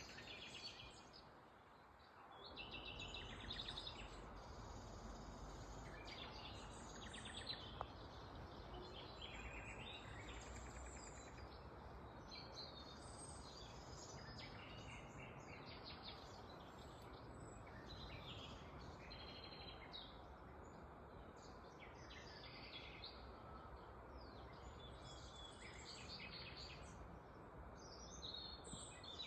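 Small birds chirping and trilling again and again, high-pitched and faint, over a low steady outdoor background hum.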